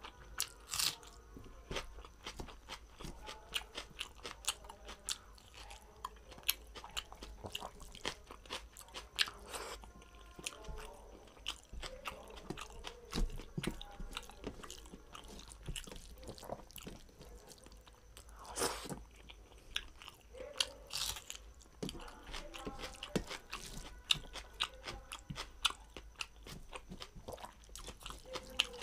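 Close-miked eating by hand: steady chewing and wet lip smacking, full of irregular sharp mouth clicks, as a person eats rice with dal, mashed vegetables and egg curry.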